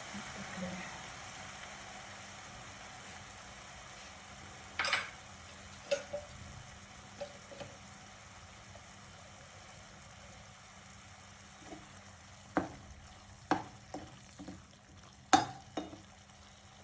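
Spice masala sizzling in oil in a pan, a steady hiss that slowly fades. A spoon clinks against the pan several times as it is stirred, the loudest knock near the end.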